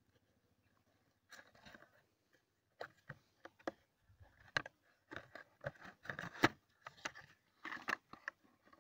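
Small paperboard box being opened by hand: the end flap pried open and the contents worked out. Irregular crinkles, scrapes and taps start about a second in.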